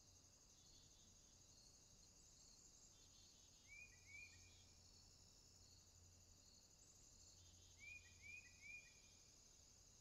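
Faint, steady high-pitched chirring of insects in summer grass, with a small bird's short chirps breaking in twice: two notes about four seconds in and three more about eight seconds in.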